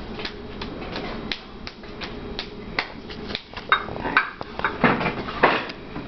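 Hands patting a lump of wet clay into a ball: quick light pats about three a second, then a few louder, uneven slaps in the second half.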